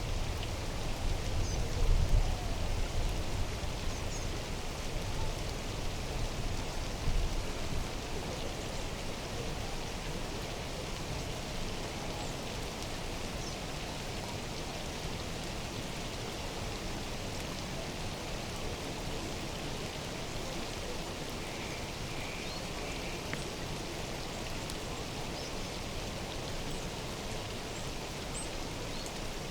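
Steady hiss of water in an open-air mountain-lake soundscape. There are two louder low rumbles near the start, about two and seven seconds in, and a few faint high chirps about two-thirds of the way through.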